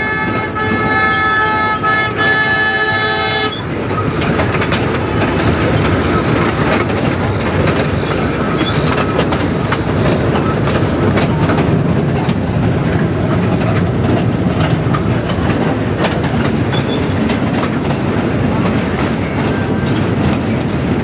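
Miniature diesel streamliner train's horn sounding a steady multi-note chord that cuts off about three and a half seconds in. After it, the steady rumble of the cars running on the rails with a fast clickety-clack of wheels over rail joints.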